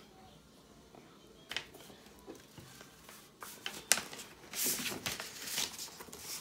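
Handling noise: a few light clicks and taps, then a longer stretch of paper and packaging rustling from a little past the middle onward.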